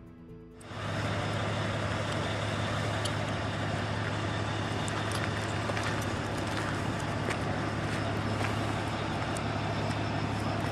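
A steady mechanical drone with a low hum, starting abruptly a little under a second in and holding even throughout, with a few faint clicks over it.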